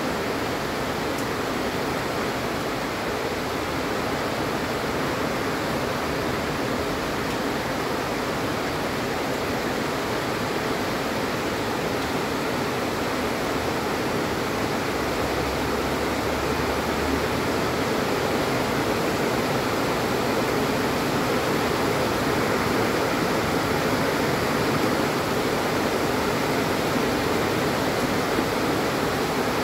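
Heavy rain pouring down in a steady hiss, growing slightly louder in the last third.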